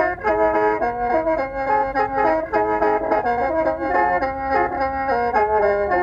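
Instrumental background music: a melody of held notes changing in quick succession over a steady accompaniment.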